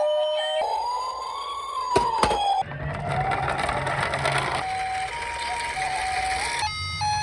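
Toy ambulances' electronic sirens: a wail that rises and falls, with a couple of sharp clicks about two seconds in. A second wail follows over a low rumble, and about halfway through the sound turns to steady, repeated siren tones.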